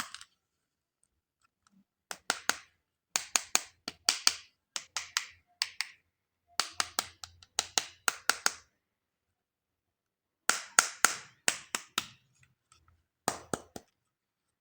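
Quick sharp taps or clicks in short bursts of about four to eight, with silent pauses between: hands tapping and handling plastic toys and packaging.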